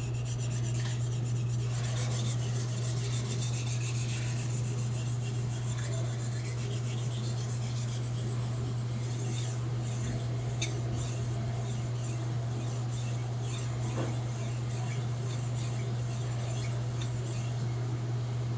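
A Blue #2 carbon-steel kitchen knife being stroked back and forth across a water whetstone, a rasping scrape. The strokes are regular through the second half and stop shortly before the end, over a steady low hum.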